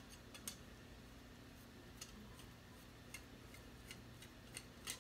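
Faint, irregular ticks and clicks from the threaded metal sections of a muzzleloader's modular ramrod being screwed together by hand. There are about eight of them, the sharpest about half a second in and just before the end.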